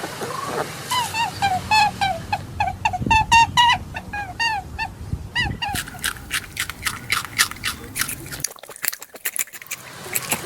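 An animal gives short, pitched chirping calls, about four a second, for roughly four seconds. They give way to a quick run of crisp crunching clicks, like chewing, with a short lull near the end.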